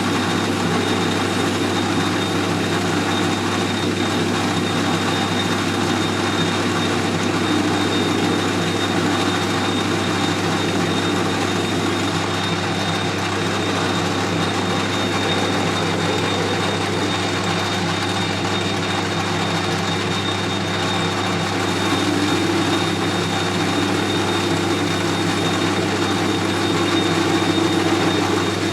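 Metal lathe running steadily under power, with a constant motor hum and a thin steady high whine over the noise of the machine.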